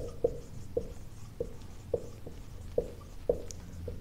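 Marker pen writing on a whiteboard: a string of short, squeaky strokes, about two a second, as letters are drawn.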